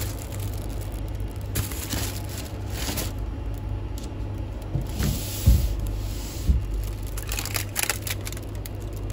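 Plastic ice-lolly wrappers and a plastic carrier bag rustling and crinkling as a hand rummages through a freezer chest, with a couple of soft knocks about halfway, over a steady low hum.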